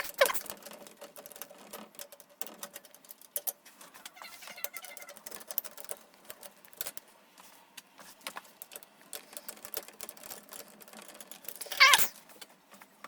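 Scattered small clicks, taps and light rattles of screws and a screwdriver being worked while PC case fans are fitted. A short voice-like call, the loudest sound, comes near the end.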